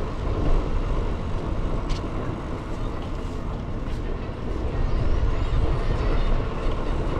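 Wind rushing over the microphone of a moving bicycle, a steady low rumble, with two short clicks about two and four seconds in.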